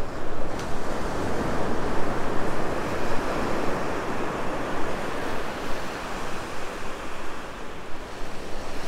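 Ocean surf breaking and washing up the beach: a steady rushing wash that swells and eases.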